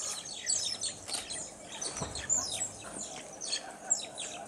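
Banded mongooses chattering: a dense, continuous run of short, high-pitched chirps and squeaks, several overlapping calls a second.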